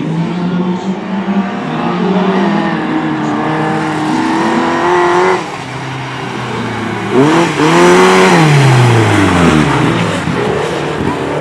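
Race car engines revving hard and changing pitch as cars race past. About seven seconds in, one passes close: louder, its note rising and then falling steeply as it goes by.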